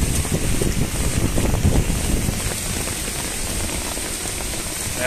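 Steady rain hiss, with low buffeting on the microphone that is heaviest in the first couple of seconds.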